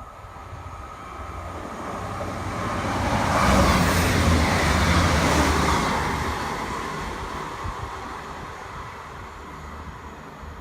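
A train passing through the station, its rumble and rail noise growing louder, peaking about four seconds in, then fading away.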